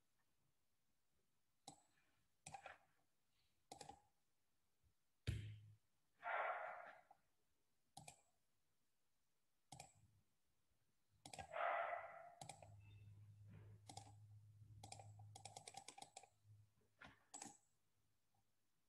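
Near silence broken by scattered single clicks of computer keys, with a quick run of key clicks about three-quarters of the way through. Two short puffs of breath-like noise come in between.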